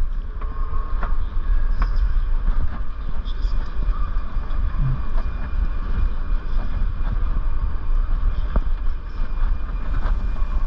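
Railway platform ambience beside a standing passenger train: a steady low rumble with a faint electric hum over it, and scattered clicks and knocks.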